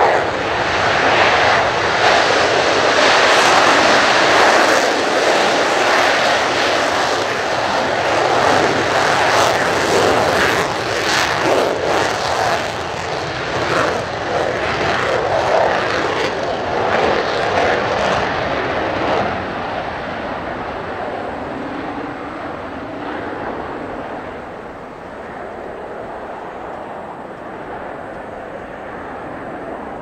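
Twin J79 turbojets of an F-4EJ Kai Phantom II at full takeoff power: a loud jet roar with crackle through the takeoff roll and liftoff, fading over the last ten seconds as the jet climbs away.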